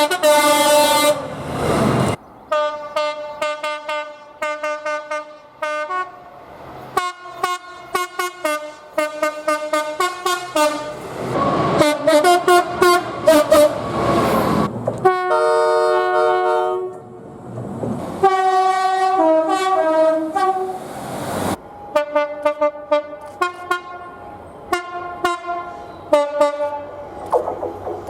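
A string of different train horns, each sounding multi-note chords, mostly in rapid series of short toots with a few longer held blasts. One horn recording cuts abruptly to the next every few seconds.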